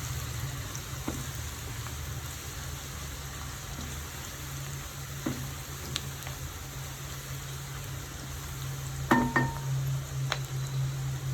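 Sliced onions frying in hot coconut oil, a steady sizzle, with a few short clicks of a spatula against the pan as they are stirred, the sharpest about nine seconds in. A steady low hum runs underneath.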